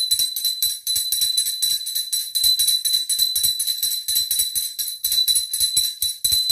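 Puja hand bell (ghanta) rung continuously in fast, even strokes, its high, clear ring sustained throughout: the bell rung during the aarti worship.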